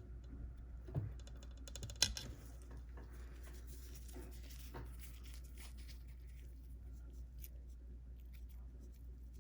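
Faint clicks and scrapes of small tools and parts being handled, with one sharper click about two seconds in, over a steady low hum.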